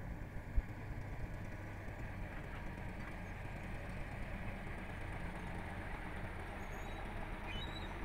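Caterpillar crawler bulldozer's diesel engine running steadily under load as the blade pushes soil, a constant low hum. A single sharp knock about half a second in.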